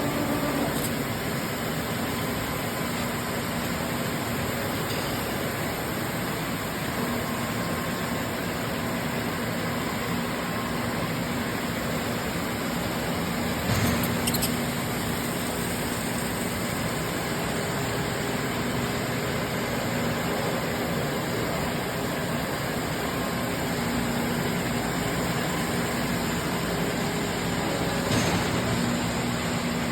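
Blanchard #22D-42 vertical-spindle rotary surface grinder running with a steady mechanical hum and faint low tone. It briefly grows louder about halfway through and again near the end.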